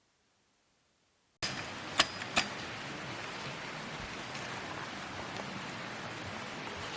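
Steady rain falling, cutting in suddenly after silence about a second and a half in, with two sharp knocks soon after.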